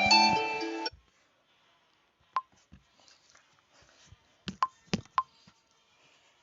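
Redmi 2A clock alarm tune, a plucked, harp-like melody, stopping abruptly about a second in. Then a few faint, sharp clicks, one near the middle and a quick cluster of four a little later.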